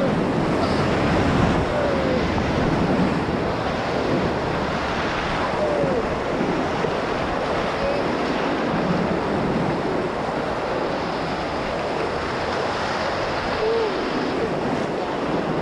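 Whitewater rapids of a mountain creek rushing around and under an inflatable raft: a steady, dense noise of churning water, heard up close from the boat.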